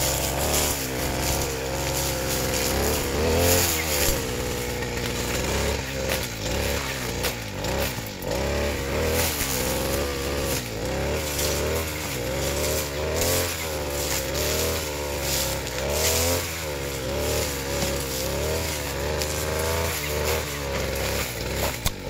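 Backpack brush cutter's small engine running under load while cutting undergrowth. Its speed rises and falls every second or so, with the rough snoring sound ('ngorok') that the owner is asking others to explain.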